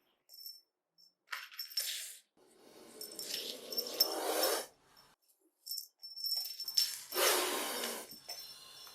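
Snake sound effects: a series of hissing, rustling bursts. There are short ones, then two longer ones of about two seconds each, around three and seven seconds in.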